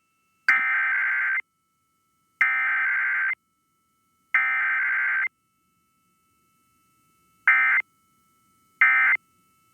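Emergency Alert System SAME digital header bursts: three harsh, buzzy data screeches of about a second each, a couple of seconds apart, which encode the start of an alert. After a pause come two short end-of-message bursts of the same sound, and a third follows just after.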